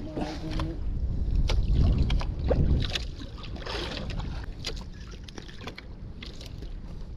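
Wind rumbling on the microphone aboard a small outrigger boat, heaviest in the first half, with scattered small clicks and taps as a fish is unhooked from a metal jig and its hooks.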